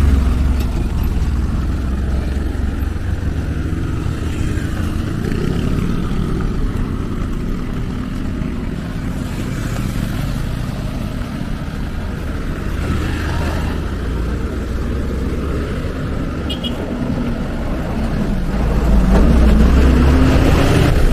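Loud, unsteady low rumble of wind on the microphone, mixed with motor vehicles and motorcycles passing on the bridge road. The rumble swells near the end.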